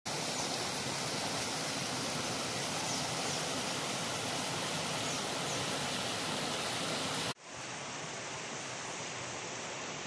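Stream water rushing and splashing over rocks in a small cascade through a broken check dam, a steady full rush. About seven seconds in it cuts abruptly to a quieter, duller flow of water.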